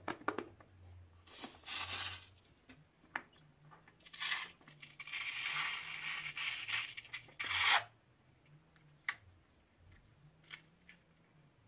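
Slime-filled rubber balloon being opened at the neck and squeezed out into a glass bowl. Short noisy bursts as the neck is opened are followed by a few seconds of wet, noisy squeezing as the thick slime is forced out, stopping about eight seconds in. After that there are a few light handling clicks.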